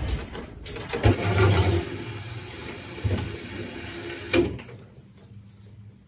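Sawmill carriage machinery running under a heavy sugi log as it is positioned, with loud clanks and knocks about one, three and four and a half seconds in over a steady low hum. The noise drops away near the end, leaving only the hum.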